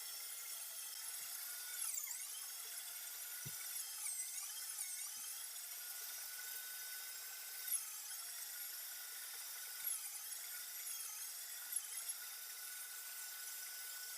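Electric meat grinder running with a high, steady motor whine, grinding herring fillet mince; its pitch dips briefly several times as the motor takes load.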